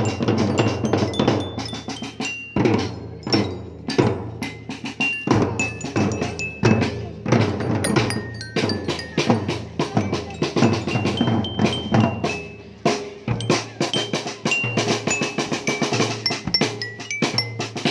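Marching snare and bass drums beating a steady rhythm while a bell lyre plays a melody of short, ringing metal notes over them.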